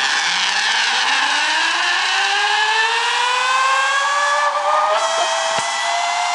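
Zipline trolley pulleys running along the steel cable as a rider speeds away: a loud whine that rises steadily in pitch as the rider picks up speed. A brief knock near the end.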